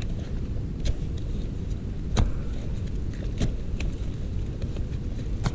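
A digging tool striking into earth, about five irregular strikes roughly a second apart, the loudest a little past two seconds in, over a steady low rumble.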